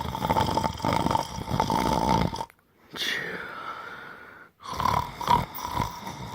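A person snoring loudly with a rattling flutter, in two long stretches separated by a brief gap. Between them comes a shorter, quieter sound whose pitch falls.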